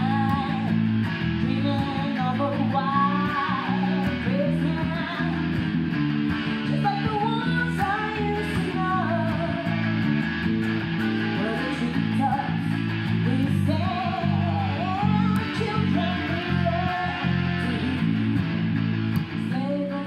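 A live trio plays: a woman sings a melody over electric guitar chords and an electric bass line.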